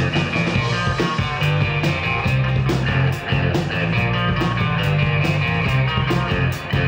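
Live rock band playing an instrumental passage without vocals: two electric guitars and an electric bass over a drum kit keeping a steady beat.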